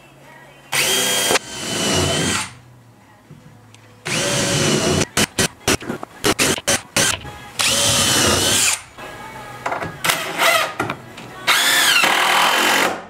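Cordless drill driving screws into the wooden roof framing of a truck camper, run in a series of short bursts that each spin up and wind down, with quick stuttering trigger pulls around the middle.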